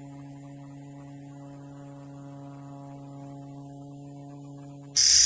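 A katydid singing: one continuous, very high-pitched steady buzz with a low steady hum beneath it. About five seconds in it cuts off suddenly, and a different, lower-pitched insect-like call takes over.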